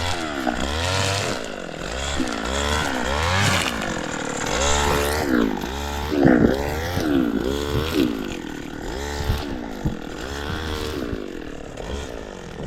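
Weed whacker's small engine revving up and down over and over, about once a second, as it cuts weeds.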